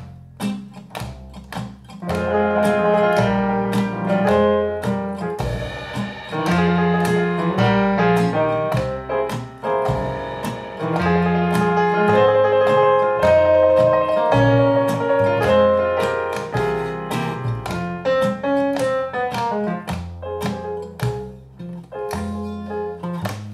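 Instrumental music: plucked, guitar-like notes and keyboard chords over a moving bass line, without singing.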